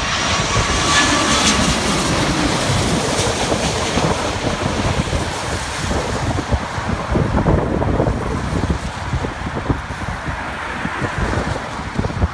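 Twin-engine jet airliner passing low overhead on a crosswind landing approach, a loud jet roar with a faint whine. The high part of the roar thins out after about three seconds as the plane moves away. Gusty wind buffets the microphone throughout in low rumbling pulses.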